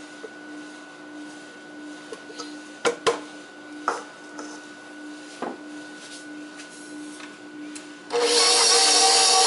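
A few light knocks of kitchen utensils against the bowl and counter, then about eight seconds in a KitchenAid stand mixer switches on and runs steadily with a motor whine, its flat beater starting to mix butter, flour and sugar.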